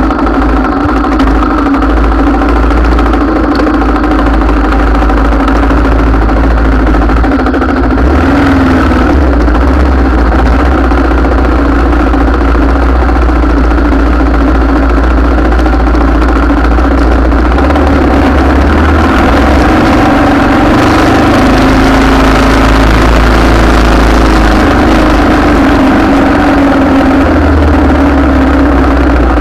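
A vehicle engine idling steadily, a loud continuous low rumble with a fixed pitch.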